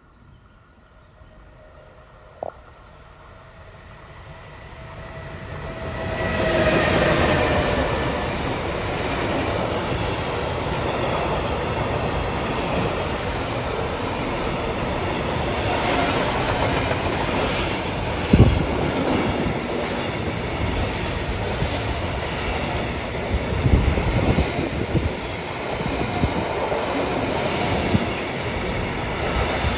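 A Class 185 electric locomotive hauling an intermodal freight train approaches and passes: a rumble that grows to its loudest about six seconds in, with a falling whine as the locomotive goes by. Then comes the steady rolling rumble and clatter of the loaded trailer-carrying wagons, with a few sharp thumps.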